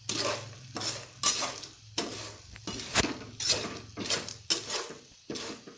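Slotted spatula stirring and scraping unpopped popcorn kernels through hot oil in a frying pan, about two strokes a second, with a light sizzle underneath. A sharp clink of the spatula against the pan about three seconds in.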